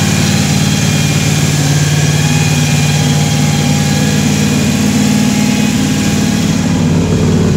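Carbureted 4.3-litre V6 truck engine idling steadily, running on its first start after the build.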